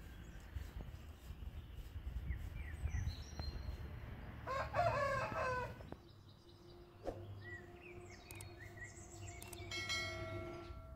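A rooster crowing once, for about a second and a half, around the middle. Small birds chirp faintly before and after, and a faint steady hum runs through the second half.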